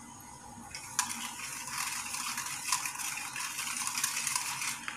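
Wire balloon whisk stirring a thin green pudding batter in a plastic bowl: a steady swishing of liquid with quick clicks of the wires against the bowl, starting about a second in.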